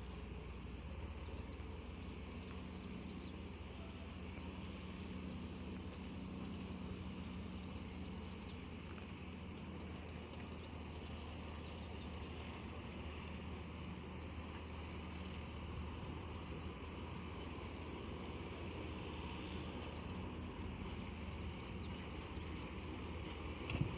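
A small songbird singing repeated high-pitched trilling phrases, each lasting a few seconds with short pauses between, over a faint steady low rumble.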